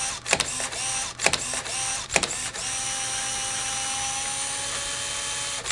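Four sharp clicks, each followed by a short falling tone, then a steady mechanical whirring hum with a thin high whine from about two and a half seconds in, which cuts off near the end.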